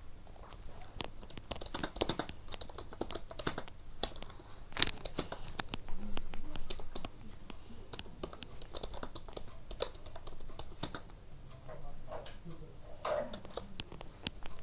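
Typing on a computer keyboard: irregular keystrokes and clicks, coming in short runs with pauses.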